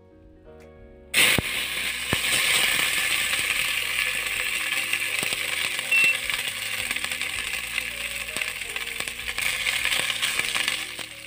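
A slotted metal spoon clinking and scraping against a steel cooking pot as parboiled rice is spooned in, over a loud steady hiss that starts suddenly about a second in, with background music underneath.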